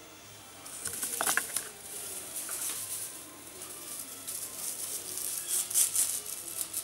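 Dried rosemary needles rustling and crackling as sprigs fall onto a heap, in irregular dry crackles that cluster about a second in and again near the end, with a short squeak about a second in.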